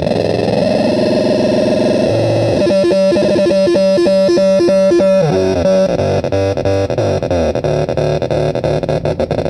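Homemade crystal radio noise synth putting out distorted, buzzing electronic tones whose pitch jumps in steps as its knobs are turned. About three seconds in it pulses rapidly at about four beats a second for a couple of seconds, then turns choppy and stuttering.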